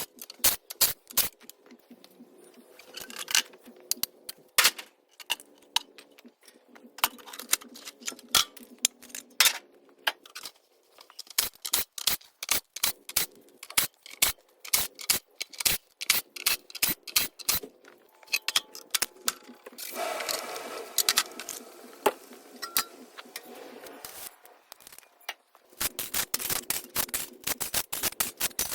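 Hand snips cutting metal: a fast, irregular run of sharp snipping clicks, with a brief metallic ringing about twenty seconds in.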